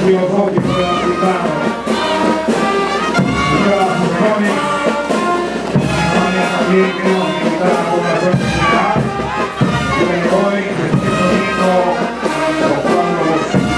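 Brass band of trumpets, sousaphones and drums playing a tune for dancing.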